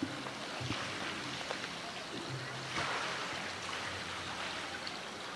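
Steady rush of running water, swelling briefly about three seconds in, with faint voices far in the background.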